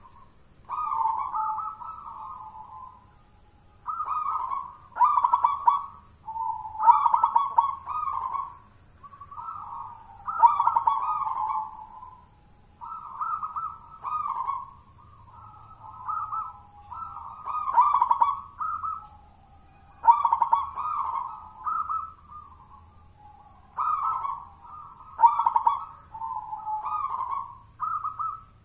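Caged zebra dove (perkutut) singing its thick-voiced cooing song, a run of rolling coo phrases repeated every two to three seconds, the kind of song kept to set other perkutut singing.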